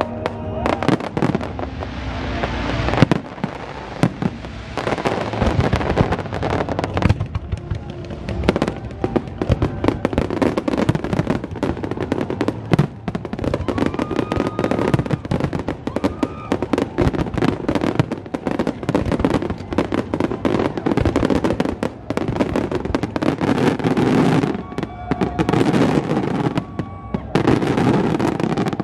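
Aerial fireworks display: a dense, irregular run of bangs and crackling bursts.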